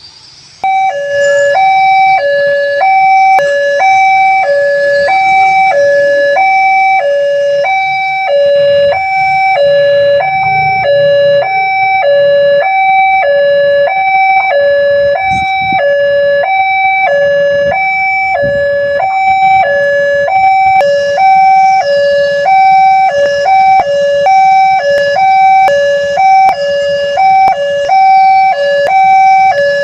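Railway level-crossing electronic warning alarm sounding, alternating between a higher and a lower tone about once a second; it starts abruptly just under a second in. The alarm warns road users that a train is approaching.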